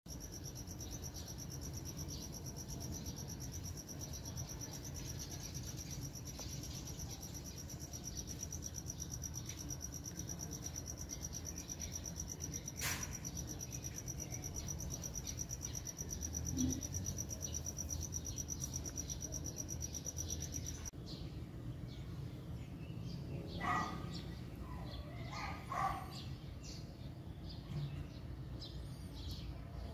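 An insect trills steadily at a high pitch, then cuts off about two-thirds of the way through. A few short bird calls follow near the end, with a single sharp click about 13 seconds in.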